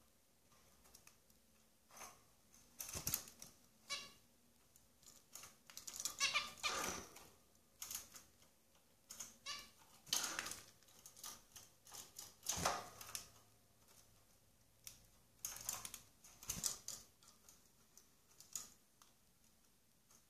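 Irregular clicking and tapping from a small animal moving around a wire cage and picking at seed in a plastic feeder, with a few quick rattling runs of clicks.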